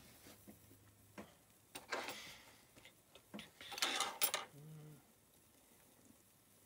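Two short scraping, clinking handling sounds, about two seconds apart, as a small metal stove wrench is moved and set down on the bench beside the priming stove.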